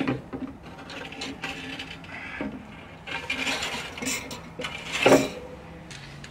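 Steel cooking grate of a park charcoal grill being lifted and lowered on its hinge, metal clanking and rattling, with one louder clank about five seconds in.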